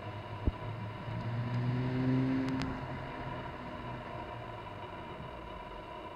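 2004 Acura TL with an RV6 aftermarket exhaust driving past: the V6 engine and exhaust note swell as the car goes by and fade as it pulls away. A sharp thump about half a second in.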